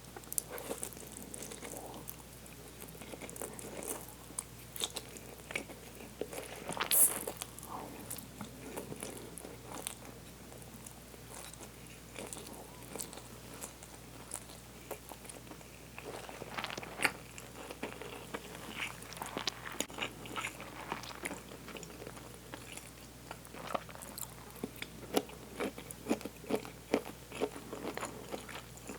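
Close-miked eating: a person biting and chewing food, with scattered sharp clicks and crunches. The loudest crunch comes about seven seconds in, and the bites cluster more densely in the second half.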